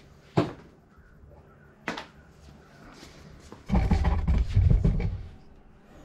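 Workshop handling noise of bicycle parts: two sharp knocks about a second and a half apart, then a loud clatter lasting about a second and a half near the end.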